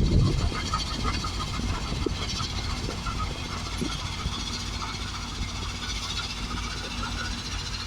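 Heavy diesel machinery at a rock crusher plant running steadily, with a quick string of light metallic ticks over the engine hum and one heavy thump right at the start.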